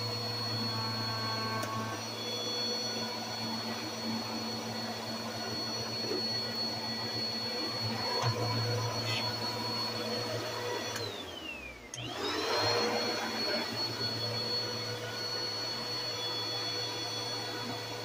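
Bagless upright vacuum cleaner running with a steady motor hum and high whine. About eleven seconds in, the motor's whine falls in pitch and the sound drops for about a second, then it spins back up to full speed and runs on steadily.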